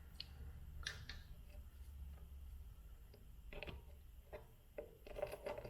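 Small clicks and knocks from handling a guitar's output jack and test leads, a cluster of them near the end, over a low hum that drops away about two and a half seconds in.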